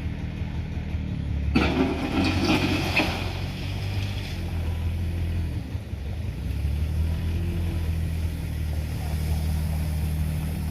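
Engine of a three-wheeled farm vehicle running steadily with a low hum. About one and a half seconds in, a louder burst of noise lasts roughly a second and a half.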